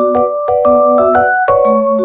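Background music: a bright, bouncy mallet-percussion melody over a steady beat and bass notes.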